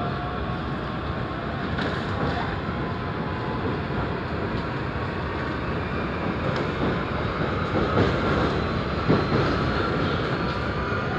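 Steady running noise of a CPTM commuter train heard from inside the carriage as it moves along a station platform, with a faint whine slowly rising in pitch and a few light clicks.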